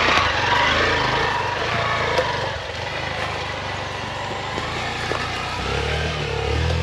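Off-road motorcycle engine running at low revs on a trail climb, revving up and easing off again near the end.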